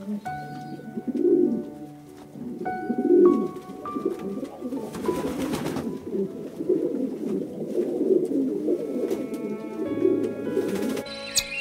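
A pigeon cooing in repeated low phrases over soft background music; the cooing stops shortly before the end.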